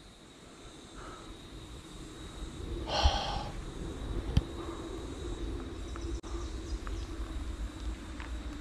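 A short, breathy exhale about three seconds in, then a sharp click a little over a second later, over a low steady rumble.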